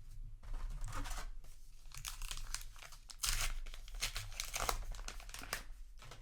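Paper wrapper of a trading-card booster pack being torn open and crinkled: irregular rustling and tearing bursts, loudest in the second half.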